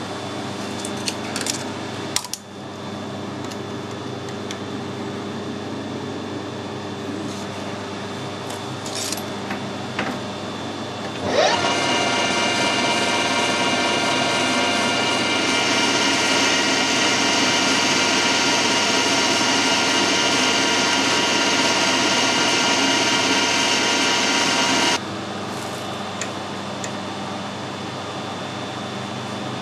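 Metal lathe with a four-jaw chuck spinning up about a third of the way in and running with a steady gear whine, turning down the end of a pin held against the tailstock centre; a brighter hiss joins about halfway through, then the whine stops abruptly. A few light clicks come in the first couple of seconds over a steady shop hum.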